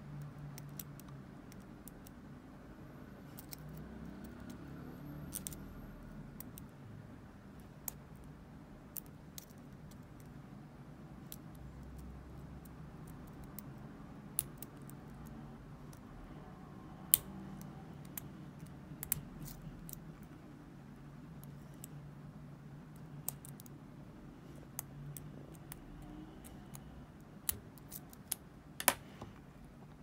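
Lock pick and tension wrench working the pin tumblers of a Tri-Circle 265 brass padlock: scattered, irregular small metallic clicks and ticks, with a few louder clicks near the end.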